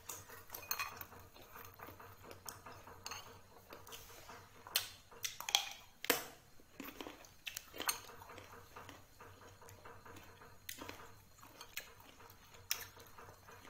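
Knife and plate clinking and tapping now and then as a green mango is handled and cut, with a few sharper clicks about halfway through.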